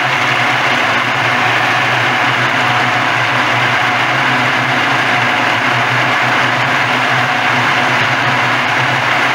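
Walnut hulling machine running steadily: a constant mechanical hum with a dense noisy rush over it, unchanging throughout.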